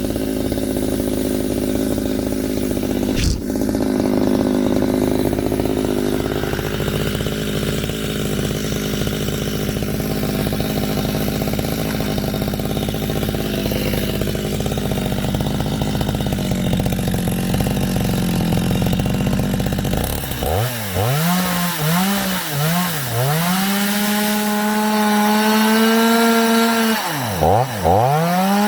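Chainsaw running at a steady speed, with a sharp knock about three seconds in. Near the end its speed drops and climbs back several times, holds high, then dips once more.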